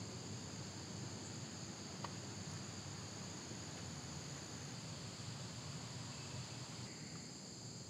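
Steady high-pitched insect chorus, crickets or similar, over a low background rumble.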